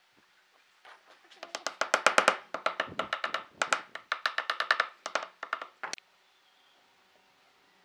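Hammer tapping a small pine glue block into a mitered wooden corner joint. A quick run of light knocks, about ten a second, comes in several bursts and stops about six seconds in.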